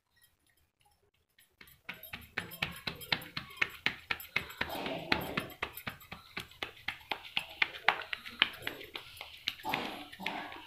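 Wet hands slapping a ball of maize-flour (makki) dough flat between the palms to shape a makki roti by hand: a quick, steady patting of about three to four slaps a second, starting about two seconds in.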